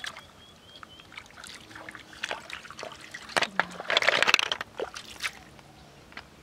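Water sloshing and trickling as hands stir a metal basin full of river snails, with short clicks of shells knocking together. About four seconds in, a louder splash of water pours into the basin.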